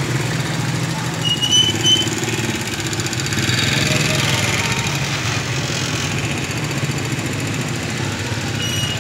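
Small motorcycle engines running steadily at low revs as motorcycle-powered pedicabs roll past at walking pace. A few short, high chirps come in about a second and a half in and again near the end.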